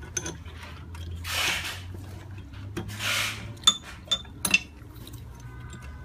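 Metal hand tools clinking and scraping against a laminating machine's metal parts during disassembly: a couple of longer rustling scrapes, then three sharp ringing clinks in quick succession about halfway through.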